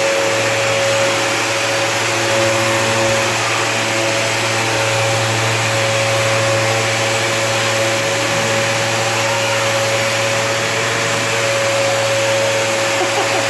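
Vacuum cleaner motor running steadily, an unbroken hum with a steady whine above it.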